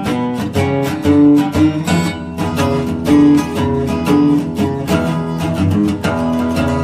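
Background music: acoustic blues guitar, strummed and picked.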